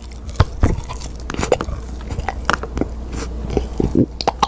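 A person biting and chewing a bar of soap close to a microphone: irregular wet clicks and crunches, over a steady low hum.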